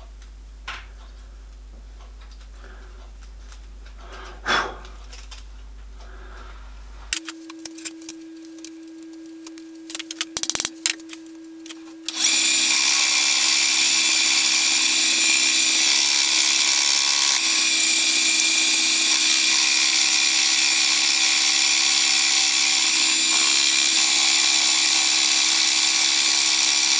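End mill on a vertical milling machine facing off a small metal spacer clamped in a vise. After a few light clicks, the spindle starts with a steady hum about a quarter of the way through. About halfway through, the cutter bites and a loud, steady, high-pitched cutting noise runs until just before the end.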